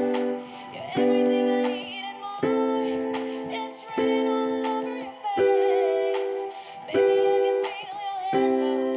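Digital keyboard with a piano sound playing slow sustained chords, a new chord struck about every one and a half seconds, while a woman's voice sings a wavering melody over them.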